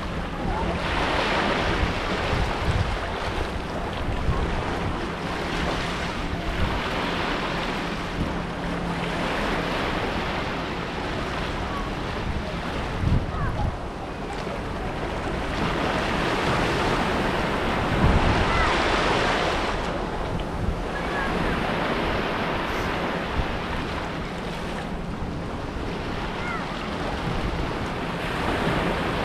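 Small sea waves breaking and washing up over sand and rocks at the shoreline, a continuous hiss that swells each time a wave runs in and eases as it draws back. An uneven low rumble of wind on the microphone runs under it.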